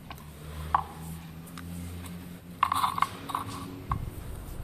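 Light clicks and clinks of small parts being handled on a bamboo board: a 3D printer hotend with a silicone sock and plastic 3D printed mold pieces, a few scattered taps with a small cluster about two and a half seconds in. A faint low hum runs underneath.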